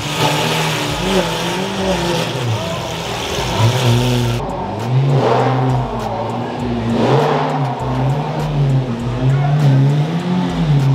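Lamborghini Aventador V12 revving repeatedly as it pulls away slowly, its pitch climbing and dropping with each blip of the throttle and two stronger surges around the middle.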